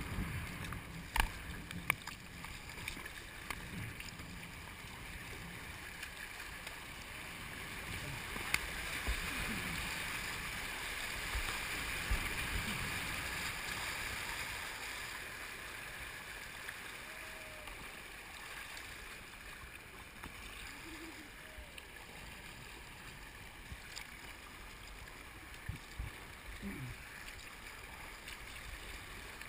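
River water rushing and splashing around a paddled kayak running through shallow rapids, the rush swelling louder for a few seconds partway through. Occasional sharp knocks are heard over it.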